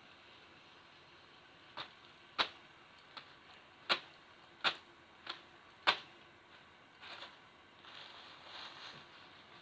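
A fidget spinner being handled and knocked against a tissue: about seven sharp clicks spread over four seconds, then soft papery rustling near the end.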